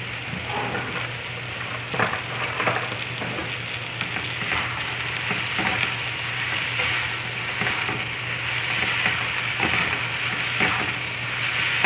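Instant noodles and vegetables sizzling in a nonstick frying pan while being tossed with two wooden spatulas, which knock and scrape against the pan now and then. The sizzle grows louder about a third of the way in.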